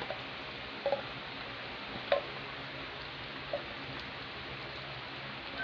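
Coconut-milk stew with banana blossom and sardines simmering in a pan on the stove: a steady low hiss with a few soft pops and light clicks.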